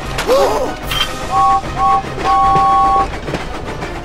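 Two-note steam locomotive whistle blown twice briefly and then once long, over background music. It follows a brief wavering squeak about a third of a second in.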